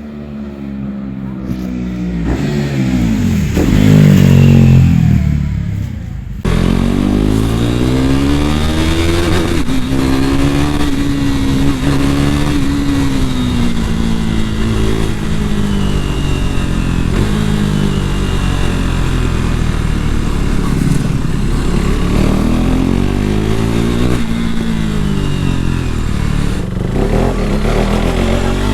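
KTM RC390 single-cylinder engine running through a replica Akrapovic slip-on exhaust with its dB killer removed. The revs climb to a loud peak about four seconds in and drop back. After a sudden change near six seconds the pitch rises and falls slowly as the throttle varies.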